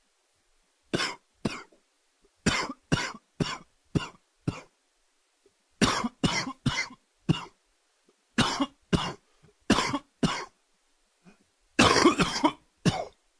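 A man with a summer cold coughing in repeated fits of two to five short coughs, with brief pauses between the fits. The last fit, near the end, is the densest.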